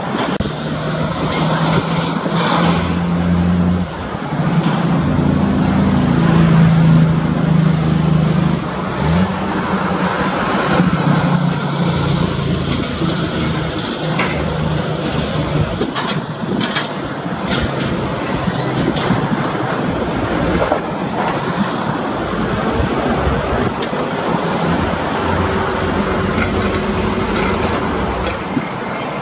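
Road traffic passing close by: a diesel truck and several cars driving past, engines running and tyres on the road, the engine pitch shifting as each vehicle goes by.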